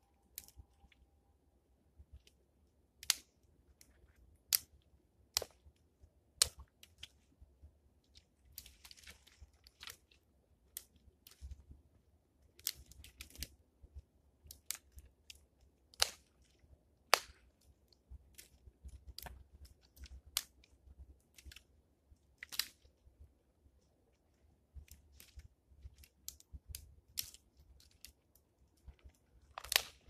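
Dry sticks and twigs snapping as brushwood is broken up by hand, a sharp crack every second or two at an uneven pace, with light crunching and rustling between.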